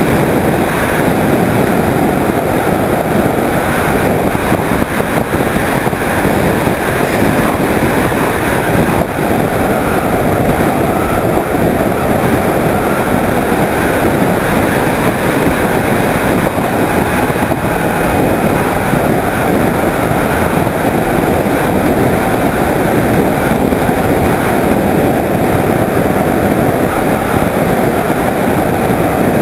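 Onboard sound of a Skyhunter 1.8m RC plane in flight: a steady, loud rush of wind over the camera mixed with the drone of its motor and propeller.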